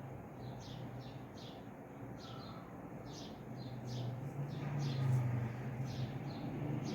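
A bird chirping in a steady series of short, high chirps, about two or three a second, over a low hum that grows louder from about four seconds in.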